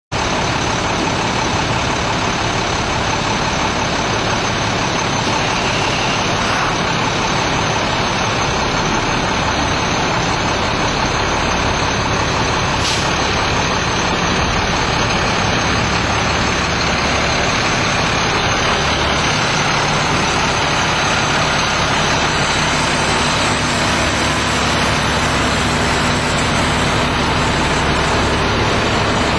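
Diesel engine of a 2006 International truck idling steadily.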